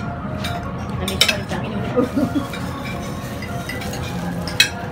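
Metal spoons and forks clinking and scraping on plates during a meal, with two sharper clinks, one about a second in and one near the end, over a murmur of background voices.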